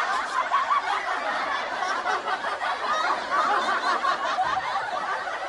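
Laugh track: many people chuckling and giggling at once, a dense, even wash of laughter.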